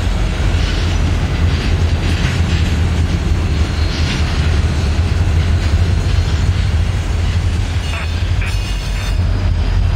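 Two Norfolk Southern diesel-electric locomotives rolling slowly past, their engines giving a steady deep rumble.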